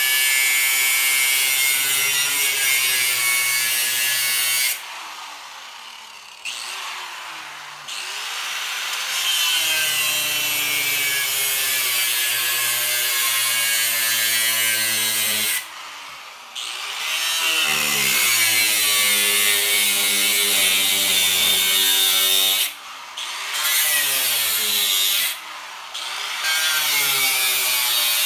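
Angle grinder cutting through the inner steel wall of an old safe, a loud steady grinding. Several times it is eased off and winds down, its pitch falling, then spins back up and bites in again, the longest pause about four seconds a few seconds in.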